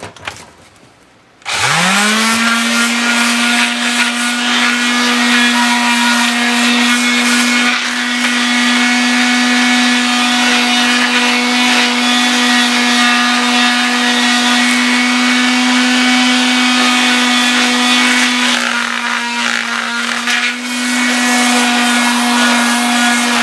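Corded electric sheet sander switched on about a second and a half in, spinning up and then running steadily as it sands an outboard motor's lower unit casing. It goes briefly quieter about three-quarters of the way through, then runs on.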